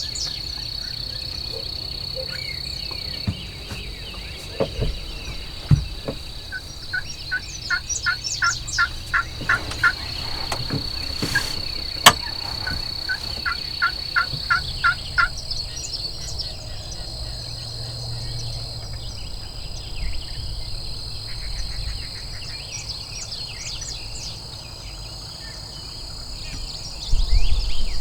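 Turkey calling: two runs of short, evenly spaced yelps, about three notes a second, over a steady high-pitched insect drone.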